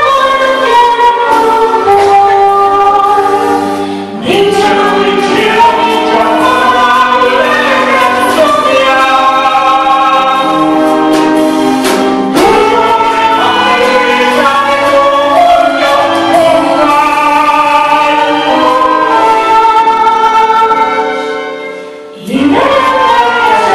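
A woman sings a song into a microphone with live band accompaniment, holding long notes. The music dips briefly about four seconds in and again near the end before the next phrase begins.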